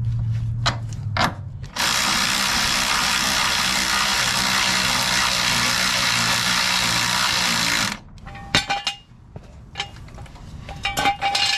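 Compact cordless impact running steadily for about six seconds, driving in a front lower control arm bolt. It stops suddenly and is followed by a few sharp metal clinks of tools and parts.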